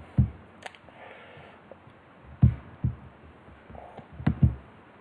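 Computer keyboard keystrokes and mouse clicks at a desk: a few scattered dull taps and a couple of sharp clicks, with pauses between them.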